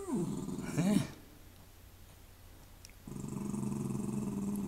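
Border terrier growling low and steady, starting about three seconds in: a warning growl at her own reflection in the window glass.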